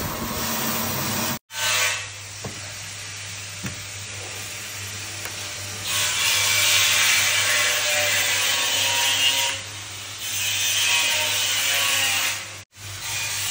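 Wave Roaster drum coffee roaster running: a steady motor hum under the rasping rush of coffee beans being stirred and tumbled, louder in two stretches in the second half. The sound cuts out briefly twice.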